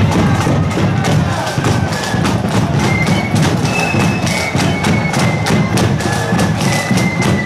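Marching flute band playing a tune: high flutes carrying the melody over a steady beat of side drums and bass drum.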